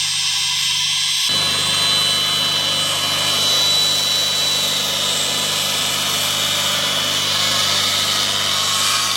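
Homemade motor-driven wood-splitting machine running, a steady motor hum with a high whine. About a second in, a rougher, fuller noise joins in and carries on.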